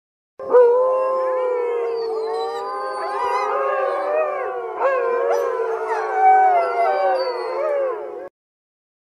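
Several canines howling together, many overlapping voices gliding up and down in pitch. The howling starts suddenly about half a second in and cuts off abruptly near the end.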